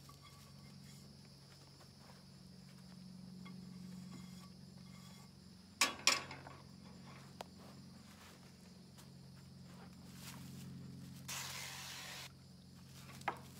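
Cooking spray hissing from an aerosol can into a frying pan for about a second near the end. It follows two sharp knocks about halfway through, over a steady low hum.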